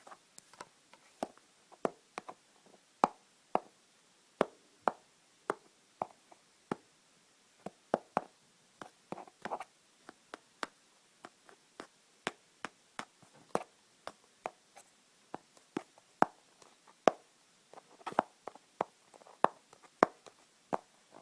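Sharp taps and clicks at an uneven pace, about one to two a second, some louder than others, as in ASMR tapping and clicking on an object.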